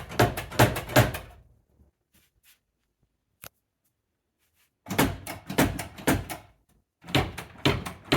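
Sliding drawers of an IKEA Axstad pantry cabinet knocking and clattering as they are tugged but won't slide out, their metal frames hitting the edge of the partly opened door. The cause is that the door was fitted with 110-degree hinges instead of 155-degree ones. Three bouts of quick knocks: one at the start, one about five seconds in and one about seven seconds in, with a single click between them.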